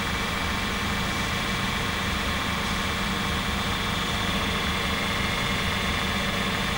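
Bobcat mini excavator's diesel engine running steadily at an even pitch and level while the machine slews and works its boom.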